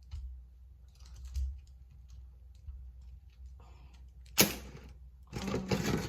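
Light scattered clicks and taps of a phone being handled and propped up, with one sharper knock about four and a half seconds in. Music starts near the end.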